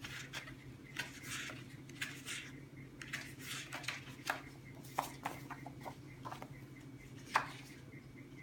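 Printed planner pages being handled and shuffled: short paper rustles with sharp taps and clicks, the loudest about seven seconds in, over a steady low hum.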